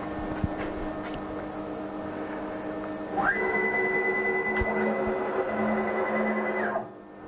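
6040 CNC router's stepper motors driving the spindle carriage along an axis in a jog move: the whine rises quickly as the axis speeds up, holds a steady pitch for about three and a half seconds, then falls away as it stops. A steady low electrical hum runs beneath.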